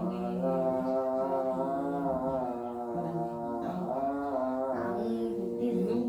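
A child reciting Arabic Quran-reading text in a drawn-out chanting melody. She holds long vowels for one to two seconds each, stepping up and down in pitch between notes.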